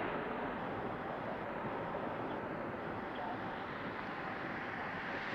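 Jet engines of an Air Canada Boeing 767-300 heard from a distance as the airliner moves away along the runway: a steady rushing noise.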